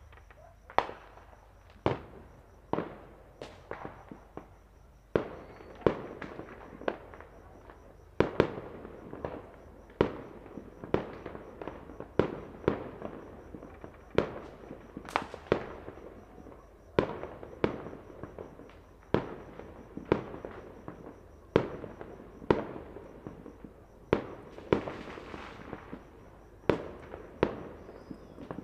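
Fireworks and firecrackers going off all around: sharp bangs at irregular intervals, about one or two a second, each trailing off in an echo, over a steady crackle of more distant ones. A brief hiss comes a few seconds before the end.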